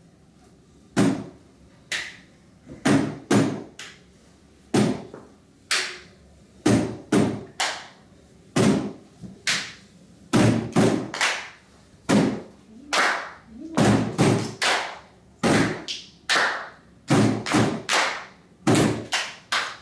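Hands clapping and patting the lid of a wooden trunk in a short rhythm that repeats over and over, with the strikes coming closer together in the second half.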